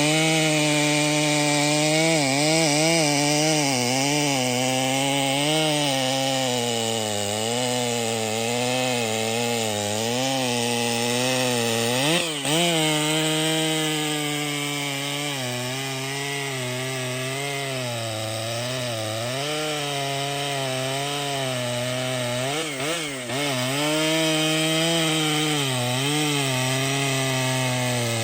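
Large professional two-stroke chainsaw cutting through a big tree trunk, its engine pitch wavering up and down as it bogs under load and picks up again. About twelve seconds in and again near the end, the pitch briefly jumps as the load eases.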